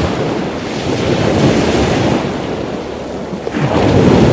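A penguin braying: two long, raspy calls, the second starting near the end.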